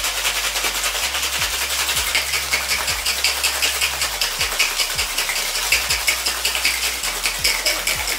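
Metal cocktail shaker shaken hard, ice rattling and clattering inside it in a fast, steady rhythm.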